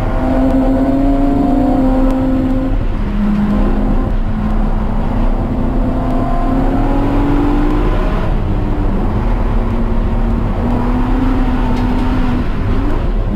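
Car engine at high revs on a track lap. Its pitch climbs, then drops back several times as it changes gear, over a heavy rush of wind and tyre noise.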